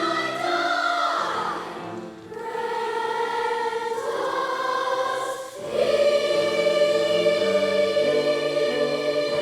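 A choir singing held, sustained chords, growing louder and fuller about six seconds in.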